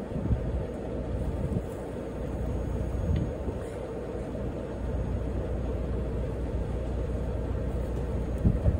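Truck's diesel engine idling with a steady low rumble and faint hum. A couple of thumps near the end, as a hay bale is heaved up onto the flatbed deck.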